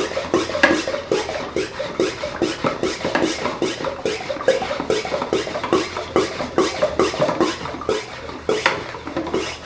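Hand pump of a plastic lawn sprayer being worked up and down, a steady rhythm of about two strokes a second with the plunger squeaking and rubbing in its tube. The pumping builds air pressure in the sprayer's tank to force oil into the engine's oil passages and prime them.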